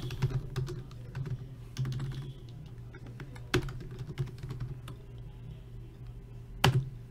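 Typing on a computer keyboard: a run of quick key clicks with two louder strokes, one about halfway and one near the end, over a low steady hum.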